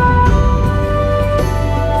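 Soft, slow background music: held notes that change about every second over a steady low bass.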